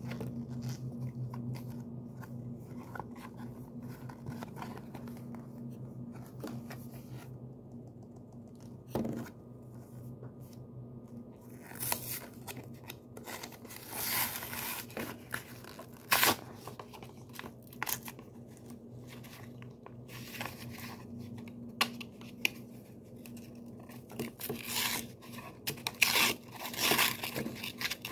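A cardboard-backed plastic blister pack of putty being handled, then torn and pulled apart by hand: quiet rustling at first, then from about twelve seconds in irregular sharp tearing and crinkling of card and plastic, loudest near the end.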